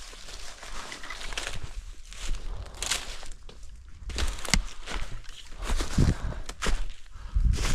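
Footsteps crunching and rustling through a thick layer of dry fallen leaves, in an uneven walking rhythm.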